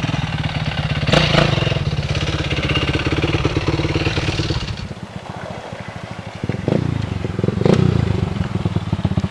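Single-cylinder off-road engines running and revving close by: a Yamaha dirt bike pulls away, then a red quad rides past. The revs rise about a second in, the sound drops back for a stretch past the middle, and then it picks up again, with two sharp knocks about a second apart.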